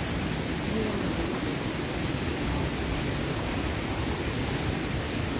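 Steady outdoor ambience: an even rushing noise with a constant high-pitched hiss above it, and no distinct events.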